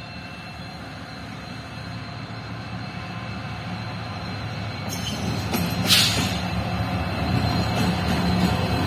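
Twin EMD diesel locomotives on a freight train approaching and passing close, their engines' low drone growing steadily louder. A short sharp hiss comes about six seconds in.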